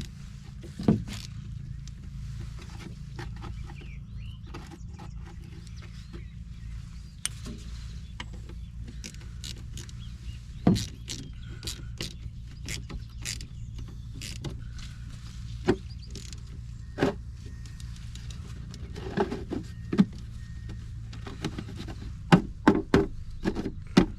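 An engine running steadily in the background, with irregular sharp clicks and knocks over it, coming more often towards the end.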